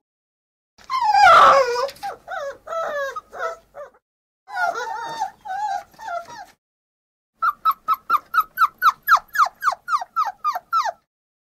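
Dog whining and squealing excitedly: a loud falling whine about a second in, then bursts of short whimpers with pauses, and near the end a quick run of short squeals, about four a second.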